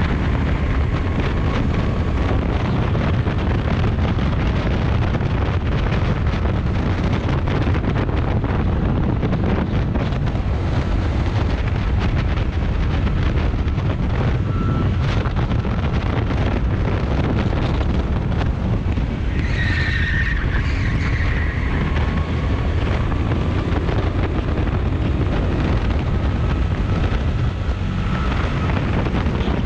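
Rental go-kart engine running at speed from onboard, under steady wind noise on the microphone. The tyres squeal briefly through a corner about two-thirds of the way in.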